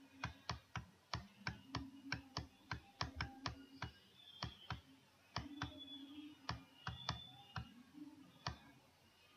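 Quick, irregular clicking of computer controls, several clicks a second with short pauses.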